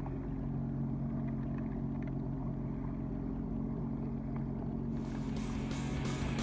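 Sea-Doo Fish Pro jet ski engine idling with a steady low hum. Music with a regular beat comes in about five seconds in.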